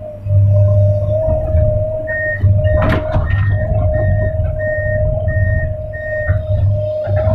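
Hydraulic excavator heard from inside the cab: the engine runs with a low drone and a steady whine, and a warning alarm beeps about seven times, evenly spaced, from about two seconds in to near the end. A single sharp knock comes about three seconds in.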